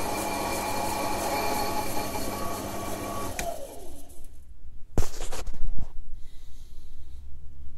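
Emco Compact 5 lathe running with a steady mechanical whine, then switched off about three and a half seconds in and winding down with falling pitch. A sharp click about five seconds in, followed by a few light knocks.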